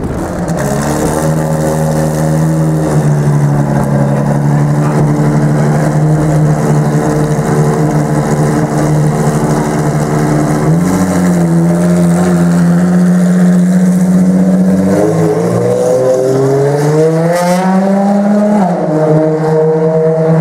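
Ferrari FXX K's 6.3-litre V12 running at a steady high idle, loud and even. About three-quarters of the way through the revs climb slowly for a couple of seconds, then drop back sharply to the steady idle.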